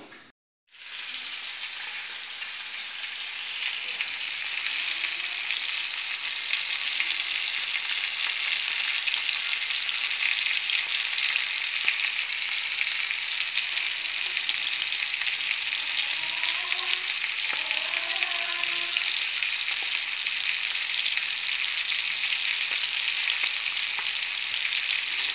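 Frying in hot oil: a steady sizzle that starts abruptly about half a second in and holds level.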